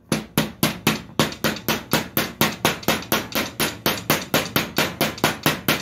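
Hammer tapping a steel wheel bearing's outer race to drive it into the front steering knuckle of a Hisun 700 side-by-side. The light, sharp taps come evenly, about five a second, worked all around the race to seat the bearing square in its bore.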